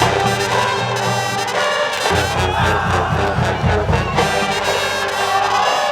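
Music led by brass horns over a steady low beat.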